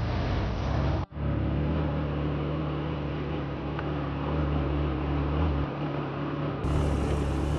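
Motorcycle engine running steadily at low speed on a rough dirt trail, with noise over it; it cuts out for an instant about a second in and picks up again.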